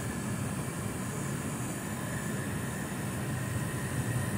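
Steady low rumble and hiss heard from inside a stationary car's cabin, like the car idling.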